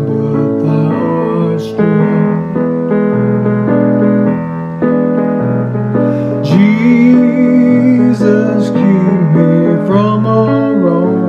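Slow keyboard music in a piano-like sound: held chords that change step by step, with a few sliding, wavering notes about six seconds in and again near the end.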